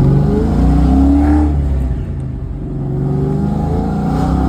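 Ford Mustang 5.0 V8 engine accelerating on a test drive after a new throttle position sensor, pulling cleanly. The pitch climbs, drops about two seconds in, then climbs again.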